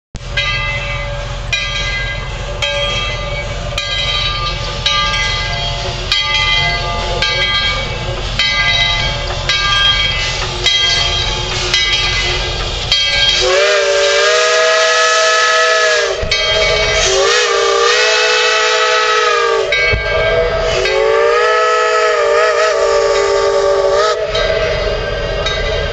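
Steam locomotive arriving: its bell rings steadily, about one stroke every three-quarters of a second, over a low rumble. About halfway through its chime whistle sounds three long blasts, each sliding up in pitch as it opens.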